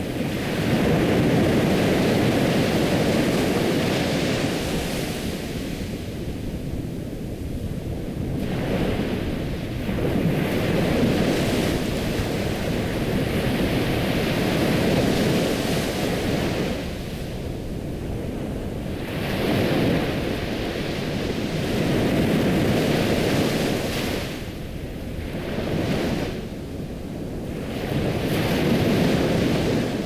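Ocean surf: waves breaking and washing in, the roar swelling and easing back in slow surges several seconds apart.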